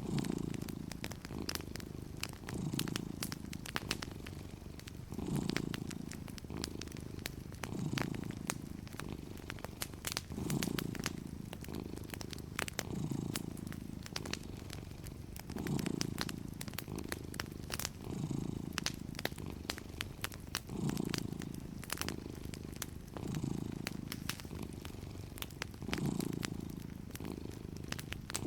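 Domestic cat purring steadily, the low rumble swelling and fading about every two and a half seconds as it breathes in and out. Wood fire crackling alongside with frequent sharp pops.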